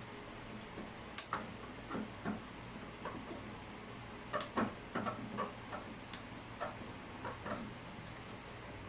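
Irregular light clicks and taps of plumbing fittings and hand tools being handled during the shower valve and water heater installation, densest in the middle, over a faint steady low hum.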